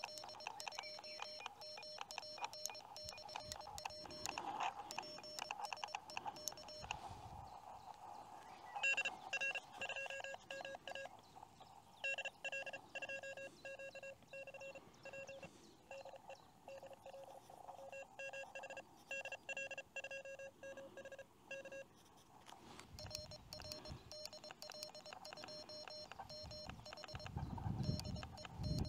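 Morse code (CW) tones from a portable QRP ham transceiver, keyed in quick runs of dits and dahs from a hand paddle, over faint band noise. A low rumble comes in near the end.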